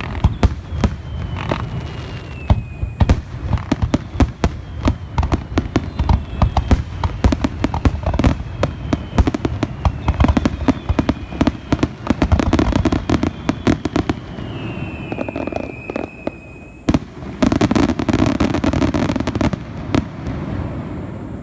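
Fireworks finale: a rapid, continuous barrage of bangs and crackles from aerial shells, with a few falling whistles. A very dense burst of crackling near the end, then the barrage dies away.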